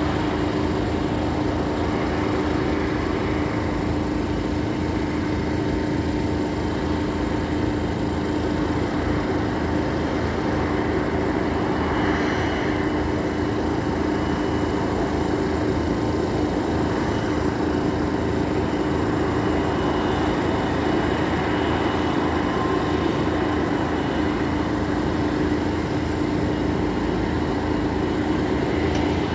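Steady engine noise at idle: a constant droning hum over a rushing background, with a faint higher whine joining about halfway through.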